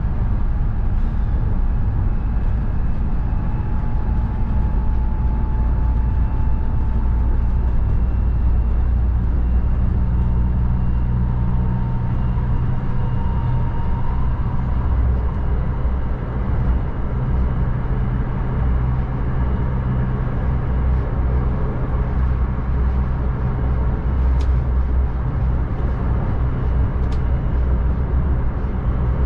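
Nankai 12000 series electric train running at speed, heard from the cab: a steady low rumble of wheels on rail with a thin motor whine that rises slowly in pitch. Two faint clicks near the end.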